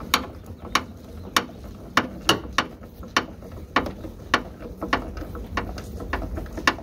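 A pickup's headlight adjuster being cranked with a Lisle Ford headlight adjustment tool. It gives sharp ratcheting clicks about twice a second at an uneven pace as the headlight slowly draws in.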